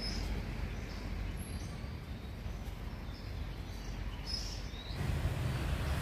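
Outdoor ambience: a steady low rumble with a few faint, short, high bird chirps scattered through; the rumble grows louder about five seconds in.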